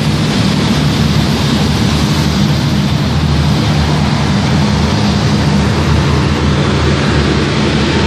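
A diesel engine running steadily at constant speed, a low hum under a loud, even rushing noise.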